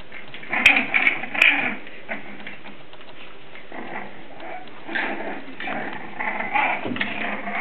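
English Bulldog puppies making short vocal sounds in irregular bursts as they play, a cluster about a second in and more from about five seconds in. Two sharp clicks come near the start.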